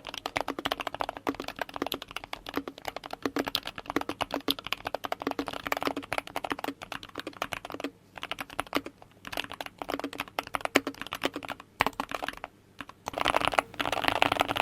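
Keychron K2 HE keyboard, with Hall-effect magnetic switches and PBT double-shot keycaps, typed on quickly: a dense run of keystroke clacks with short pauses about eight, nine and twelve and a half seconds in, and a louder, denser flurry of keystrokes near the end.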